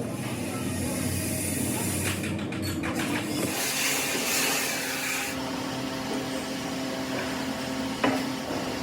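Workshop machinery running with a steady hum, with a spell of hissing near the middle and a single sharp knock near the end.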